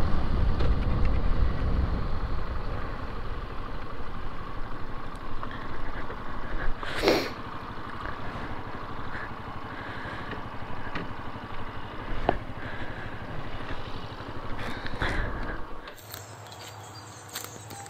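Benelli BN 125 single-cylinder motorcycle engine slowing as the bike pulls in, then running steadily at idle with the bike stopped, with a sharp click about seven seconds in. The engine sound cuts out suddenly near the end.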